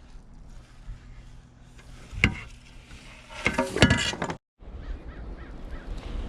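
A sharp click about two seconds in, then about a second later a louder burst of small metallic clinks and rattles.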